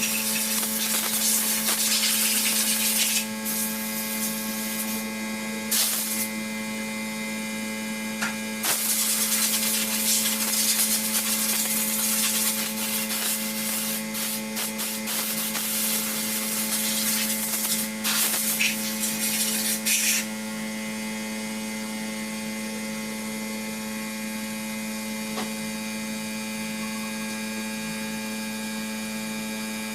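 Transmission-shop work noise: a steady machine hum throughout, with loud rough hissing and rubbing noise in stretches that stops about twenty seconds in.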